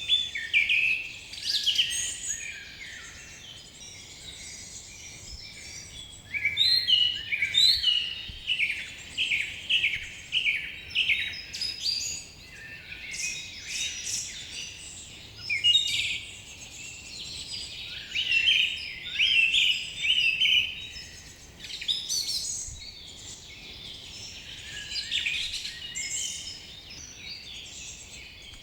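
Several birds singing and calling together in a forest, with rapid chirps and trills overlapping continuously over faint background noise.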